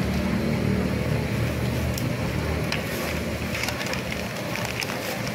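Busy background noise with a low steady engine-like hum, and stiff paper crinkling from about three and a half seconds in as a food wrapper is folded around sticky rice and fried pork.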